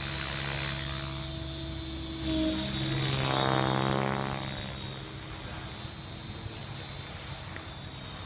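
Remote-control helicopter flying: a steady hum of the rotor with a high motor whine, which swells suddenly about two seconds in and then fades back down.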